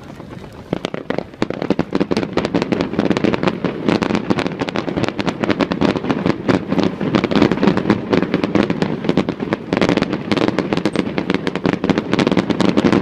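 Fireworks display: a dense barrage of rapid bangs and crackles that thickens about a second in and keeps going without a break.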